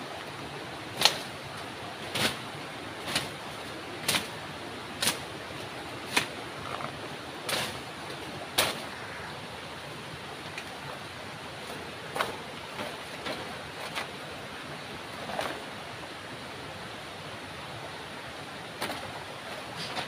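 Rustles and snaps of someone pushing on foot through dense forest undergrowth, sharp about once a second for the first nine seconds, then a few scattered ones, over a steady rushing background.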